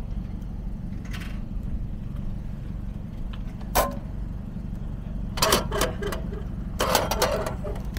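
Clicks and clatter of a bowl of soba being pulled out through a hot-food vending machine's metal delivery hatch: a sharp knock about halfway, then two short bursts of rattling near the end. A steady low hum runs underneath.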